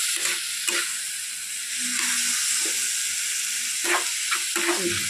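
Chopped onion, capsicum, carrot and tomato sizzling steadily in oil in a kadhai, with a metal spatula scraping and stirring through them a couple of times near the start and several times near the end.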